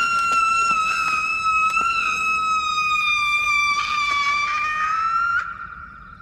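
A young man's long, shrill, high-pitched scream, held on one note for about five seconds, rising slightly just before it cuts off abruptly.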